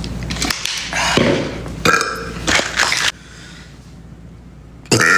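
A man burping: belches about a second in and from about two to three seconds in, then another starting near the end.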